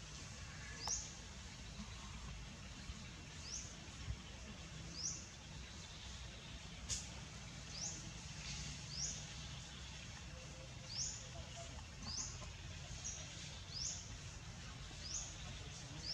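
A bird calling with a short, high chirp repeated about once every second or so, over a steady low background hum. There is a single sharp click about halfway through.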